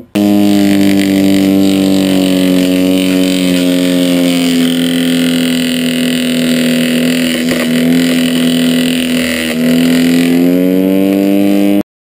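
Lawnmower converted to a wood chipper, its corded electric motor and blade running loud and steady as a stick is pushed into the blade. The pitch sags a little through the middle, picks back up near the end, then cuts off suddenly.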